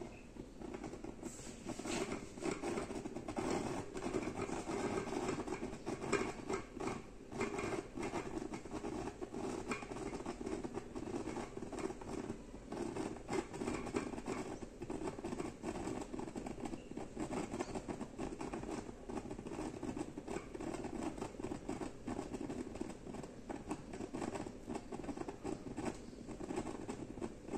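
A Midea MG-GP06B mini rice cooker boiling hard: a dense run of small pops and crackles over a steady low rush as bubbles and starchy foam burst under its glass lid.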